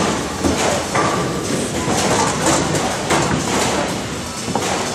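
Bowling alley din: a steady rumble of balls rolling on the lanes, broken by several short clatters and knocks of pins and balls.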